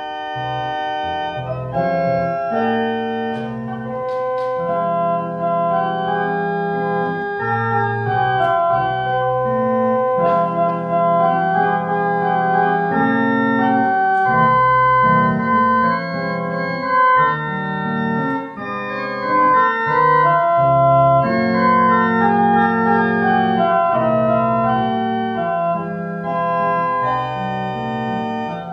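Church organ playing a hymn tune alone: full held chords that change every second or so, coming in at the start.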